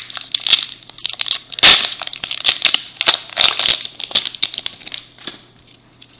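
Wrapper of a Topps Opening Day baseball card pack being torn open and crinkled by hand: a quick run of sharp crackles, loudest about a second and a half in, dying away after about five seconds.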